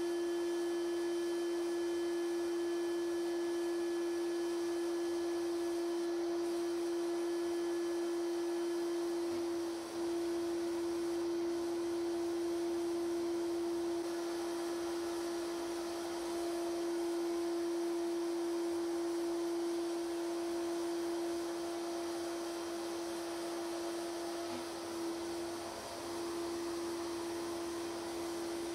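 A steady, pure single tone at a middle-low pitch, held without change apart from two brief dips, over a faint hiss.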